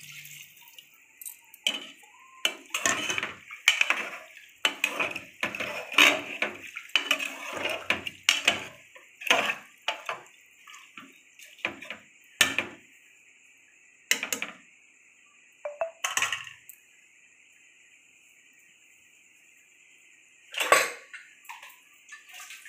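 Slotted metal ladle stirring watery chickpea curry in a steel pressure cooker: repeated clinks and scrapes of metal on the pot, then a pause of a few seconds and one loud clank near the end. A faint steady high hiss runs underneath.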